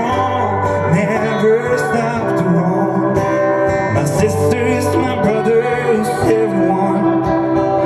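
Live Americana band playing on after the last sung chorus line, with acoustic guitar and a wavering melody line over a steady bass.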